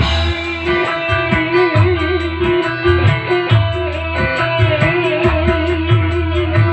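Music: a sustained guitar melody with wavering vibrato notes over a steady bass and beat.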